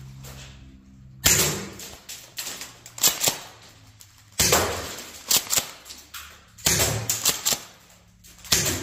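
Golden Eagle M870 green-gas pump-action airsoft shotgun firing in its six-shot burst mode: a series of sharp shots about a second or so apart, each followed by lighter clicks and rattles.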